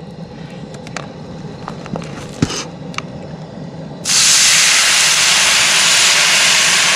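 Ginger fish sauce poured into a hot cast-iron skillet, hitting the pan with a sudden loud sizzle about four seconds in that then goes on steadily as the sauce boils on contact. Before it, a few light knocks.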